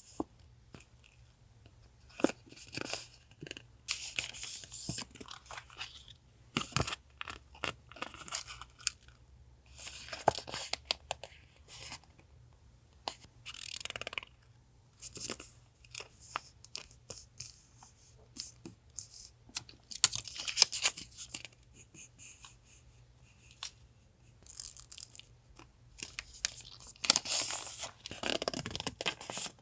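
Paper and plastic packaging being handled: crinkling, rustling and tearing in short irregular bursts with quiet gaps between. A faint steady low hum sits underneath.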